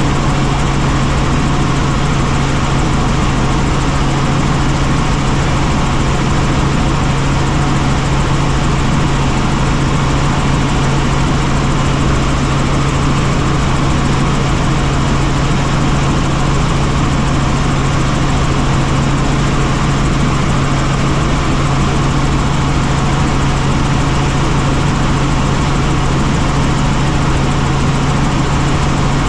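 Helicopter running steadily: a constant loud drone of engine and rotors with a strong low hum.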